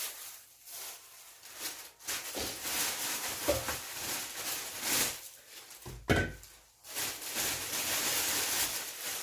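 Paper bags of bungeoppang being handled and rustled in irregular swells of crinkling, with a sharp knock about six seconds in.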